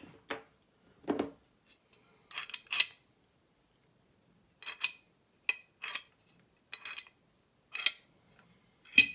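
Metal lever plates and parts of a 7-lever lock clinking and clattering against each other as they are handled and set down, about ten separate clinks with gaps between.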